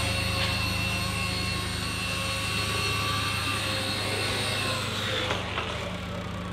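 Small DC motor spinning the rotor of a homemade paper-cup toy helicopter, a steady high whine. About five seconds in the whine falls in pitch and dies away as the motor winds down, with a couple of light knocks.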